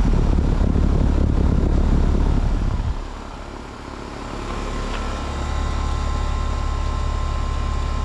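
Luxaire central heat pump's outdoor unit running in cool mode, its condenser fan blowing air and its Bristol compressor running. There is a loud rush of air close over the fan discharge for the first three seconds. It dips, then settles from about five seconds in into a steadier hum with a faint high tone.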